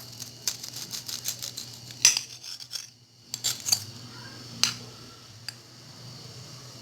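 Cutlery and dishes clinking and scraping: a scatter of sharp clicks, the loudest about two seconds in, over a steady low hum.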